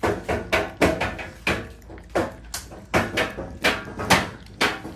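Puppies eating soft, soaked food from a bowl: a run of wet smacking and lapping sounds, two or three a second.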